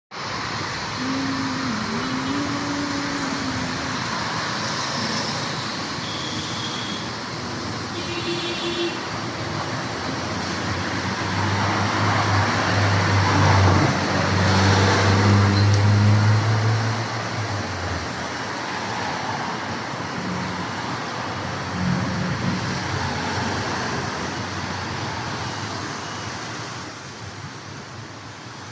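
Road traffic going by steadily. Loudest about halfway through, as a vehicle with a low engine hum passes close.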